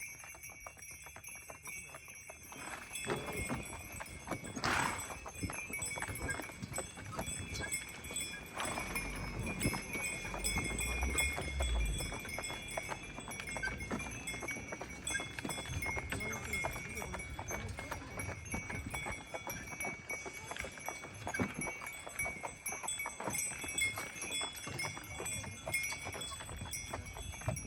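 Horse pulling a carriage, hooves clip-clopping unevenly while the harness bells ring steadily.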